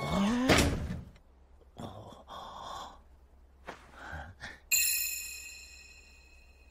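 A short rising vocal 'huh?' at the start, then a bright bell-like chime about three-quarters of the way in that rings with several high tones and fades slowly, struck again right at the end.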